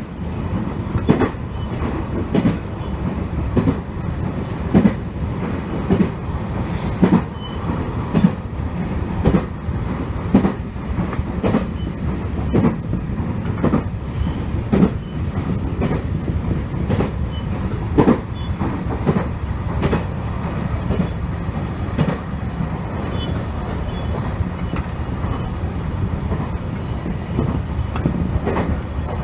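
Ban'etsu West Line train running on the rails, its wheels clicking over rail joints about once every second over a steady low running rumble. The clicks grow fainter in the last third.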